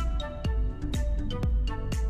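Background electronic music with a steady kick drum about two beats a second and bright, short melodic notes.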